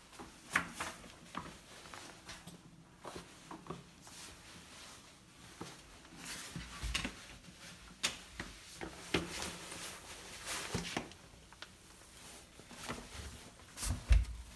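Scattered rustles, light taps and knocks of someone moving about in a small tiled entryway and stepping into sneakers, with phone-handling noise and a louder thump near the end.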